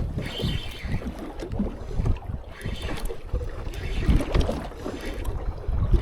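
Strong gusty wind buffeting the microphone: a low rumble that swells and drops irregularly with the gusts.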